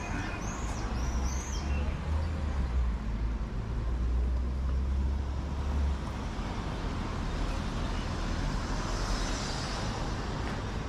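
City street traffic noise, with a vehicle's low engine rumble that stops about six seconds in.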